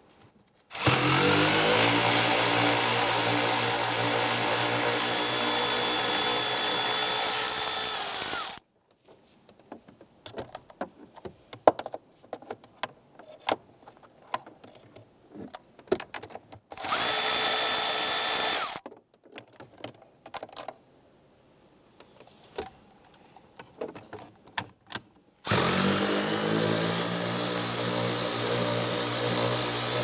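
Cordless power tool spinning a 10 mm socket on an extension to back off the shifter's rear mounting nuts. It makes three runs: a long one of about eight seconds at the start, a short one of about two seconds in the middle, and another starting near the end. Each spins up quickly to a steady whine. Between the runs come light clicks and rattles of the tool and parts.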